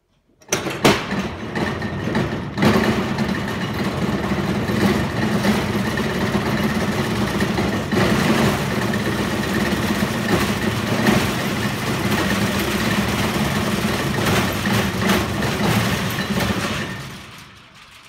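Fire-rated rolling steel door dropping in a closing test: the slatted steel curtain runs down its guides under its own weight with a loud, steady metallic rumble and rattle. It starts suddenly with a clank about half a second in and dies away near the end.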